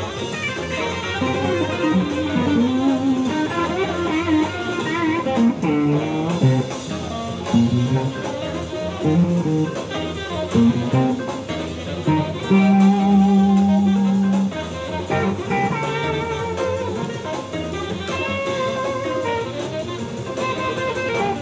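Stratocaster-style electric guitar played through an amplifier: single-note lead lines with wavering vibrato, and one long held note a little past halfway.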